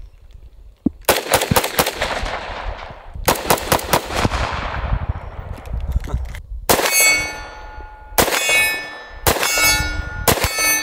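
Magnum Research Desert Eagle L5 pistol firing .357 Magnum rounds: two quick strings of shots, then single shots each followed by the ringing clang of hit steel targets.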